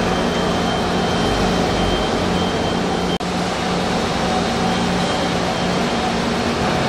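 Steady engine drone from a working fishing-boat quay, from forklifts and boat engines running, with a low hum held at one pitch. It breaks off for an instant about three seconds in.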